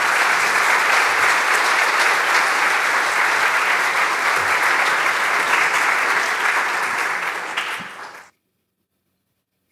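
Audience applauding steadily, then cut off abruptly about eight seconds in.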